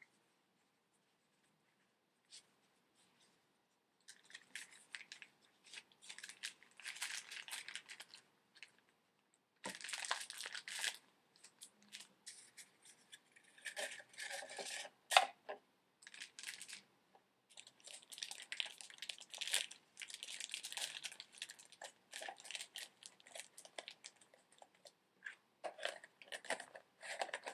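Faint rustling and crinkling of a plastic bag, absorbent pad and paper as an oil sample kit is packed into a plastic shipping container, with one sharp click about fifteen seconds in. Near the end the lid is put on the container.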